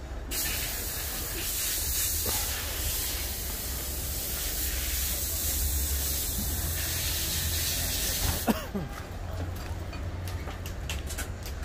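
A steady hiss that starts abruptly and cuts off suddenly after about eight seconds, over a low rumble.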